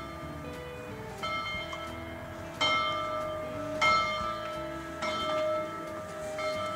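A large locomotive bell being rung by pulling its cord. It sounds four times, about every second and a quarter, and keeps ringing between strikes.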